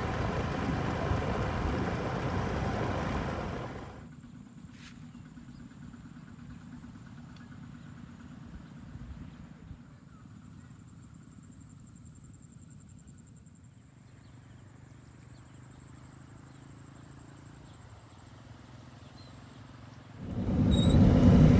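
A loud steady rumble cuts off about four seconds in, leaving a quiet outdoor background with a faint low hum and a thin high buzz; the rumble comes back loud near the end.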